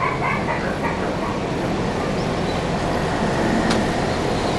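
A dog whimpering and yipping in short cries during the first second, over a steady low rumbling noise that runs throughout. A single sharp click comes near the end.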